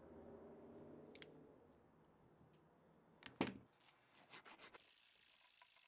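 A couple of sharp knocks, then a strip of sandpaper rubbed around a steel motor shaft: a few short rasping strokes that settle into a steady rub near the end, scouring rust off the shaft.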